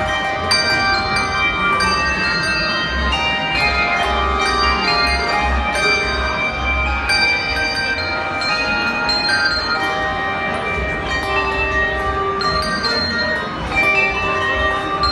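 A handbell choir playing a tune on brass handbells: many bell notes struck in quick succession, each ringing on and overlapping the next.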